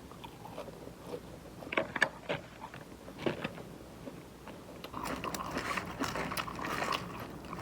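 A person biting and chewing a mouthful of crispy chicken salad, with crisp crunching. A few separate crunches come in the first half, then steadier crunchy chewing from about five seconds in.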